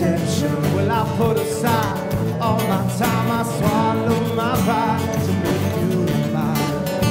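Live acoustic band playing: several acoustic guitars strumming steadily over an electric bass, with a bending melody line carried over the top.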